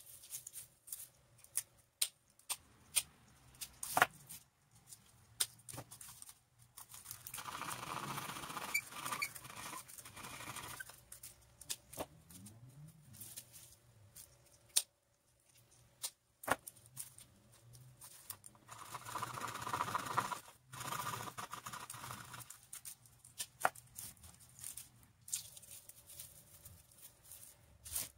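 Hands at craft work: scattered sharp clicks and snips, with two longer stretches of scraping or rustling a few seconds each, about a third of the way in and again past the middle.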